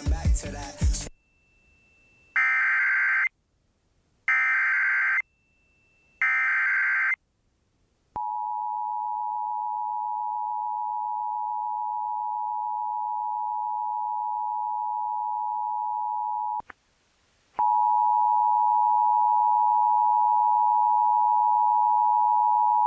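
Emergency Alert System tones from a Sage ENDEC. A short burst of data noise at the very start is followed by three buzzy SAME header data bursts, about a second each, at two-second spacing. Then the steady two-tone EAS attention signal sounds for about eight seconds, and after a second's pause another steady alert tone begins, with fainter lower tones under it.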